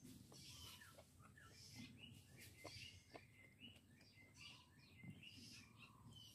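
Faint birds chirping: many short, high notes scattered throughout, over quiet outdoor background, with a few soft clicks.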